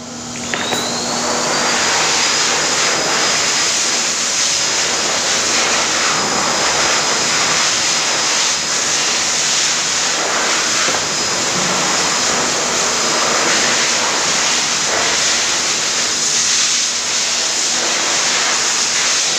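Pet grooming blow dryer switched on about half a second in: its motor whine rises and then holds a steady high tone over a loud, even rush of air.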